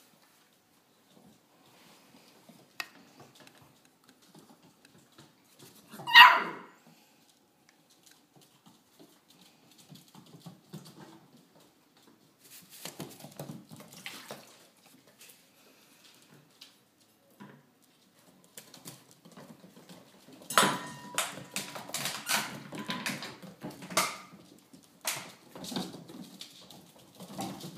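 Six-week-old vizsla puppies at play: one short, sharp puppy cry about six seconds in, then scuffling, paws scrabbling and knocks on the floor, busiest in the last third.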